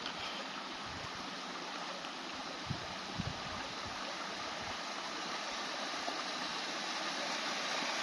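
A small stream running over and around stones: a steady rushing of water that grows a little louder toward the end, with a couple of faint low knocks about three seconds in.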